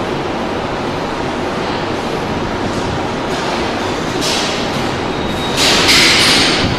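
Steady loud noise of a metro station's turnstile hall, with two hissing bursts: a short one about four seconds in and a louder, longer one near the end.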